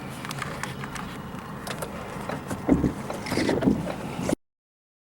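Rumbling wind and road noise from a moving vehicle, with scattered knocks and a louder low thump a little under three seconds in. The sound cuts off abruptly just over four seconds in.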